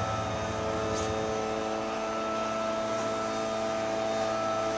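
Steady machine drone holding several steady pitched tones, with one faint click about a second in.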